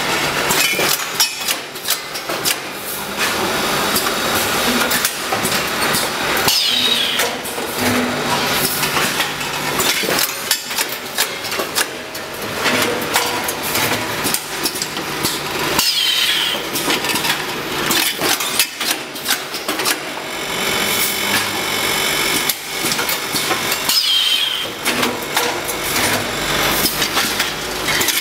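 Automatic rice vacuum-packing machine running: a continuous mechanical clatter of chains and moving parts, full of sharp clicks and knocks, repeating its cycle about every eight to nine seconds as it forms and seals packs.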